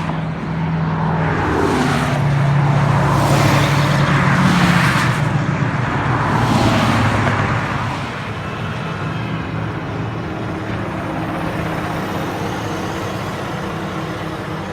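Motor vehicles running and passing, a steady engine hum under road noise that swells for several seconds near the start and then eases off.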